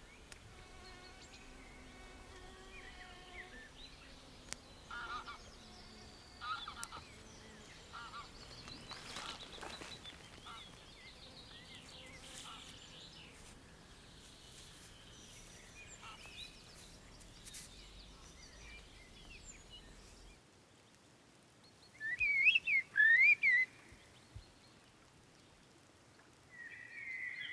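Bird calls, including goose-like honks, over a faint outdoor background. About twenty seconds in the background drops away, and loud warbling whistles follow, then one held whistle at the very end.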